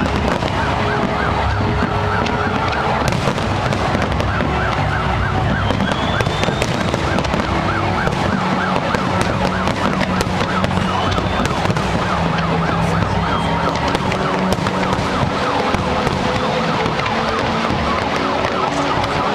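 Fireworks crackling over a dense, steady crowd din, with a fast up-and-down warbling tone like a siren repeating throughout.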